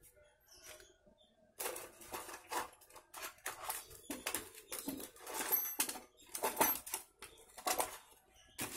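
Hands rummaging through small metal engine parts, picking out valve spring washers: bursts of clicking and rattling, starting about a second and a half in and running on with short pauses.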